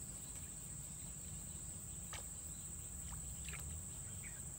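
Steady high-pitched drone of insects, crickets or cicadas, with a few faint short ticks in the middle.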